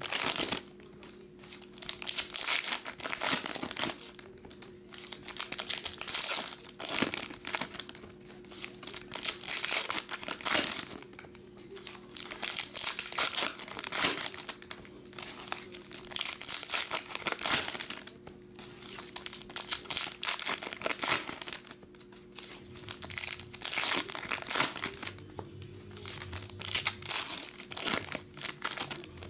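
Foil wrappers of Panini Elite basketball card packs being torn open and crumpled by hand, in repeated bursts of crinkling and tearing every one to three seconds. A faint steady hum runs underneath.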